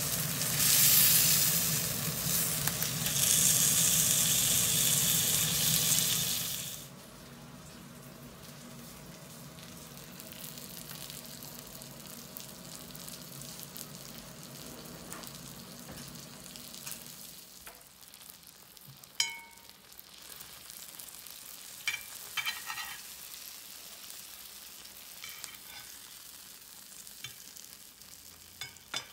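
Hanwoo beef tenderloin steak sizzling loudly in a hot cast-iron pan as it is turned with tongs. About seven seconds in it cuts off to a much quieter steady hiss, with a few short clinks of cutlery later on.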